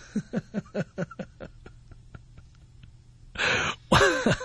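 Laughter: a run of short 'ha' pulses, about five a second, fading out over roughly two and a half seconds, followed near the end by a sharp breath in and a short voiced sound.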